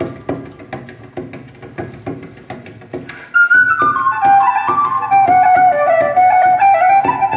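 Live traditional folk music: guitar strumming a steady rhythm, then about three seconds in a flute comes in loudly with a melody that steps down from a high note.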